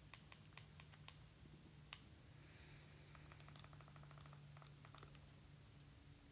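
Near silence: faint room tone with a low steady hum and a few soft, scattered clicks, with a faint rapid buzzing rattle for about a second and a half around the middle.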